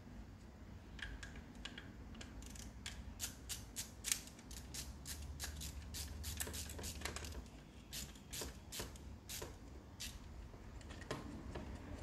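Electrician's wire cutters snipping and stripping cable cores and insulation: quick, irregular metallic snips and clicks, several a second, thickest through the middle and tailing off near the end.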